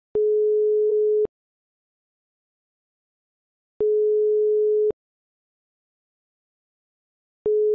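Telephone ringback tone on a phone line: a single steady tone, heard three times for about a second each with gaps of silence, as the called line rings without being answered.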